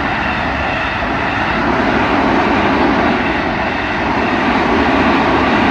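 A train passing over a level crossing at close range: a loud, steady rumble and rush of wheels on rails that builds just before and holds throughout.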